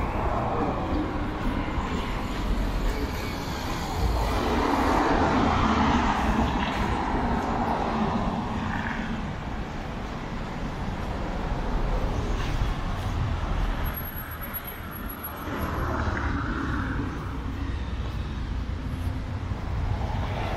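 Road traffic passing steadily, with vehicles swelling loudest about four to eight seconds in and again around sixteen seconds.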